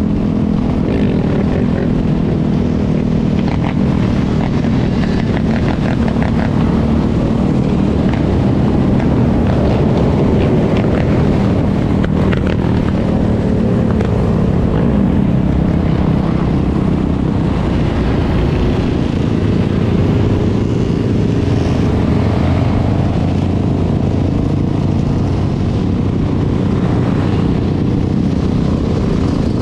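Dirt bike engine running steadily under way at cruising speed, mixed with the engines of the other dirt bikes and quad ATVs riding alongside.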